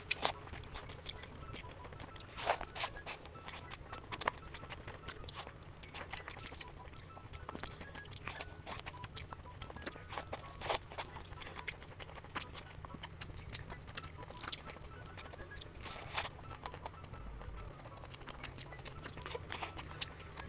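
Close-miked eating: irregular chewing and crunching with sharp crackles, over a low steady hum.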